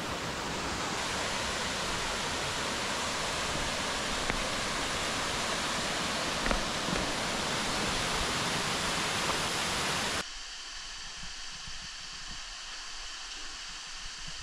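Steady rushing noise with no engine note. About ten seconds in it cuts abruptly to a quieter, thinner hiss.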